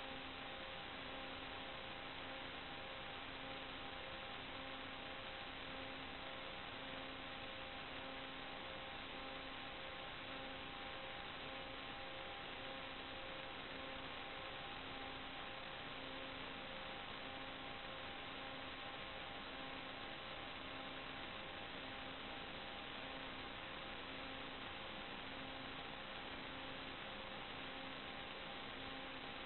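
Steady hiss with a faint electrical hum made of a few steady tones, the lowest pulsing about once a second. It is electrical noise on the recording rather than any sound of the aircraft, and it does not change with the flight.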